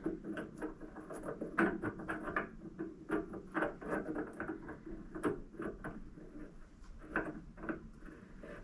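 Hand-handling of steel parts: a threaded test piece clicking and scraping irregularly, several times a second, against the internal threads of a freshly cut nut as it is tried for fit. The thread is not yet catching.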